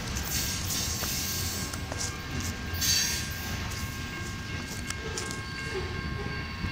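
Empty covered hopper cars of a grain train rolling slowly through a curve and away: a low rumble of wheels on rail with a faint, steady high-pitched wheel squeal.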